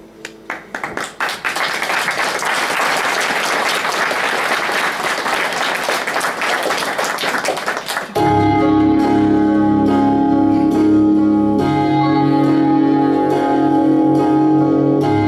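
Audience applause, starting as scattered claps and quickly filling out. About eight seconds in, an instrumental music track starts abruptly with sustained chords and a steady beat.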